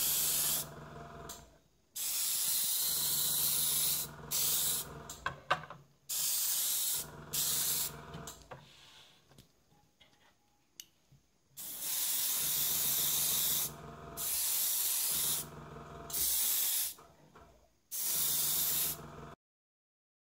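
Airbrush spraying matte varnish in about nine short hissing bursts with pauses between, a steady low hum beneath the hiss; the hiss cuts off suddenly near the end.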